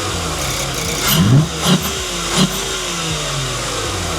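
Volkswagen Atlas VR6 engine idling, then blipped about a second in: three or four quick revs, each rising and dropping straight back to idle. It breathes through an open filter with a velocity stack in a test airbox.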